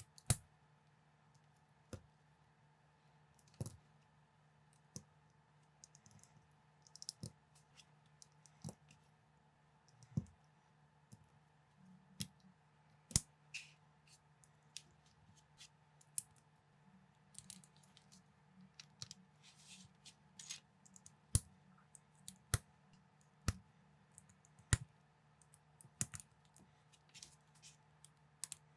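Plastic building bricks clicking as they are handled and pressed together: irregular sharp clicks about one a second, coming more often in the second half, over a faint steady low hum.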